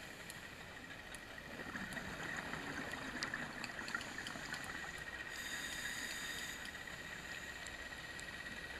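Underwater ambience picked up by a diver's camera: a steady hiss with a thin constant whine and scattered faint clicks. About two seconds in, a louder rush of noise swells for a couple of seconds. About five seconds in, a short cluster of high steady tones sounds briefly.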